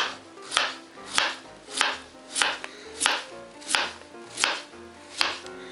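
Kitchen knife slicing a peeled raw potato into rounds on a plastic cutting board: nine even cuts, one about every two-thirds of a second, each ending in a sharp knock of the blade on the board.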